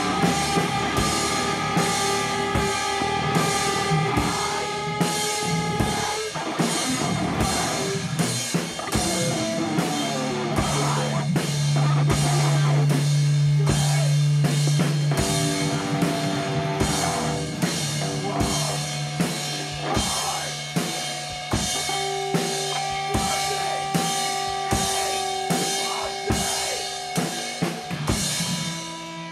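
Instrumental punk rock: a drum kit keeps a steady beat of kick, snare and cymbal hits, about one and a half a second, under long held notes.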